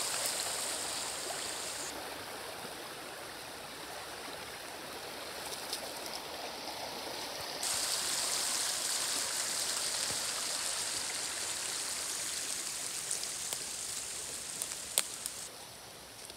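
Shallow woodland stream running over stones and fallen logs, a steady rushing and burbling that swells and eases and drops away near the end. A few faint clicks, with one sharp click near the end.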